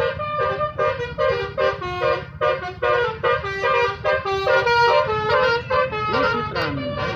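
Bus 'telolet basuri' musical air horn playing a fast melody of short notes that step up and down in pitch, with a falling glide near the end. A steady low rumble runs underneath.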